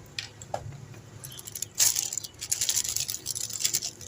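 Small metal parts and tools clinking and rattling as they are handled, in scattered clicks and denser bursts, over a steady low hum.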